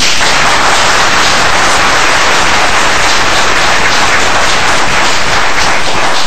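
Audience applauding: loud, dense clapping.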